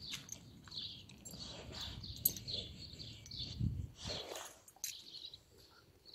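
Small birds chirping over and over, a few chirps a second, with a few light clicks and a brief low rumble partway through.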